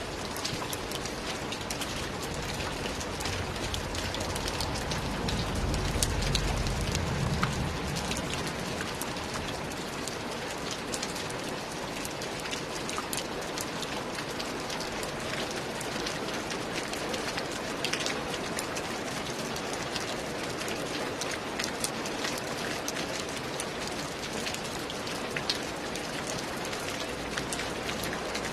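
Steady rain pattering on roof tiles, a dense hiss with many separate drops ticking. A low rumble swells and fades about five to eight seconds in.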